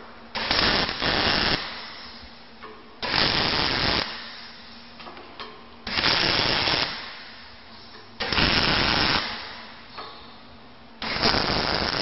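Electric arc welding: five short tack welds, each a burst of arc crackle about a second long, repeating every two to three seconds, to fix the line-boring machine's centering kit in place around the bore.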